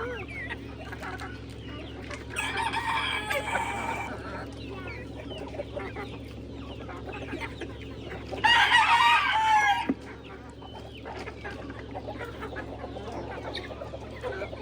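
Chickens clucking, with a rooster crowing twice: once a couple of seconds in and again, louder, about eight and a half seconds in.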